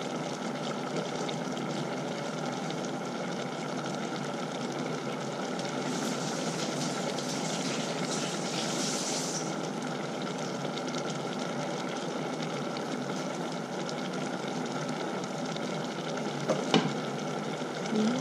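Steady hiss of a pot of mushroom curry simmering on the hob, with a couple of sharp knocks near the end.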